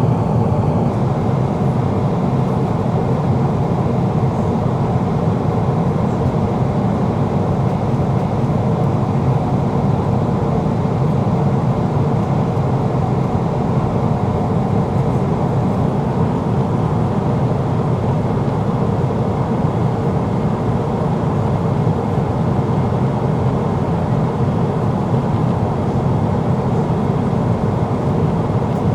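Steady cabin noise of a Boeing 777-300ER in flight: rushing airflow over the fuselage and the hum of its GE90-115B turbofan engines, with faint steady tones over a low rumble. A faint high whine fades out about a second in.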